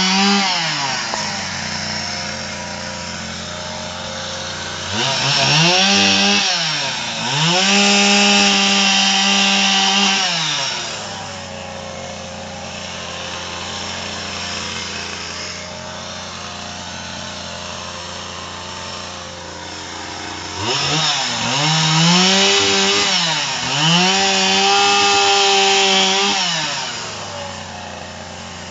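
Two-stroke chainsaw cutting pruned branches into small logs. It drops to idle, then is run up to full throttle twice for several seconds each time, with a brief dip in pitch during each run, and revs up again near the end.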